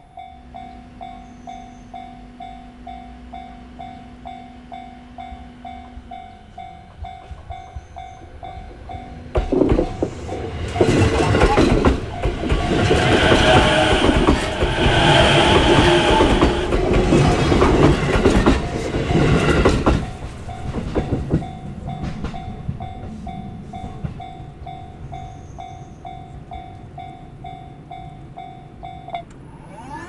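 Japanese level-crossing warning bell ringing steadily, pulsing about twice a second. From about ten seconds in, an E233-series electric train passes for roughly ten seconds, its wheels clattering and drowning out the bell. The bell stops just before the end.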